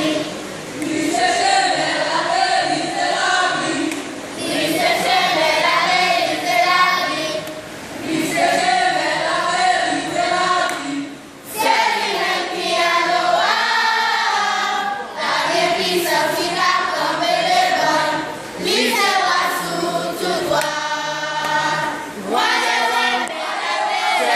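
A children's choir of young girls singing together in sustained phrases, with a brief break between phrases about halfway through.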